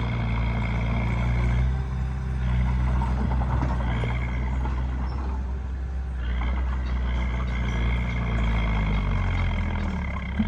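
Bulldozer's diesel engine running steadily with a high-pitched whine over it. The whine drops out about five seconds in and returns about a second later.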